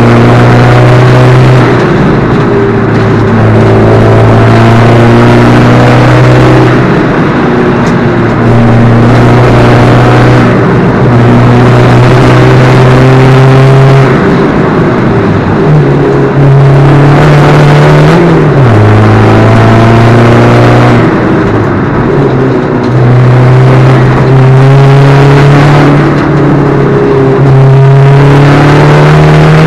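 Alfa Romeo 147 JTD's four-cylinder turbodiesel engine running hard under racing load, loud. Its pitch falls and climbs again several times.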